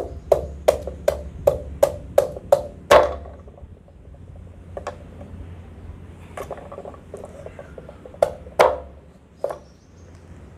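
Knife chopping fruit on a wooden cutting board: a quick run of even strokes, about three or four a second, for the first three seconds, then a few scattered single cuts, the loudest near the end.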